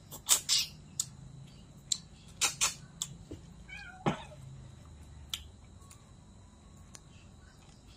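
A cat meowing once, about four seconds in, in a short call that falls in pitch. Several sharp clicks and knocks, louder than the meow, come before it.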